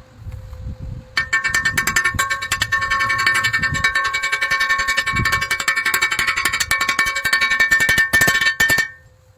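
Welding arc crackling steadily on metal, with a faint steady whine, starting about a second in and cutting off abruptly near the end: one weld run.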